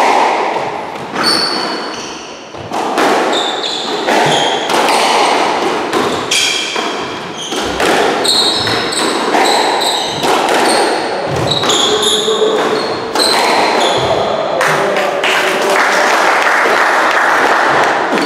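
Squash rally: the ball smacking off rackets and the court walls at irregular intervals, with short high squeaks of shoes on the wooden floor.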